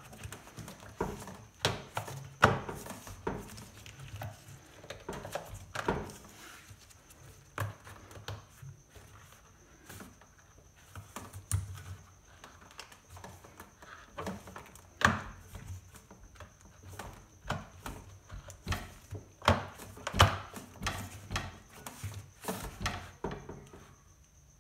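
New rubber door seal being pushed and worked onto the tub's front ring of an LG WD12020D front-loading washing machine: irregular soft thumps and knocks with rubbing of rubber between them, a few knocks sharper than the rest.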